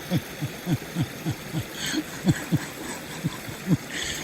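Water gurgling and trickling through a hole punched in a beaver dam, with a steady rush under an irregular run of short, low glugs, several a second.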